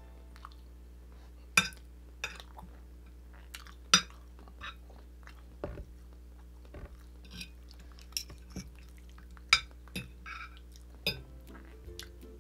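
Metal spoon and fork clinking and scraping on a plate while eating, a dozen or so sharp clinks at uneven intervals, with chewing in between.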